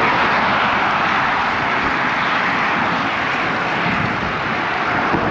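Steady road noise from car traffic passing in the lane beside a moving bicycle, a continuous rush of tyres on the highway mixed with wind over the microphone.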